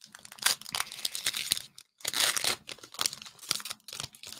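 Foil booster-pack wrapper being torn open and crinkled by hand, in several crackling bursts with a brief pause, the loudest about two seconds in.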